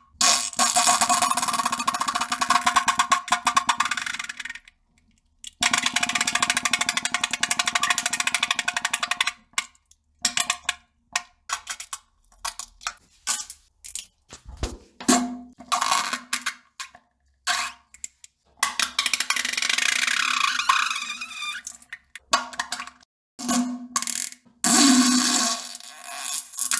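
A run of fart sounds: two long, fast flutters of about four seconds each, then a string of short ones with gaps between them, and another long one about nineteen seconds in.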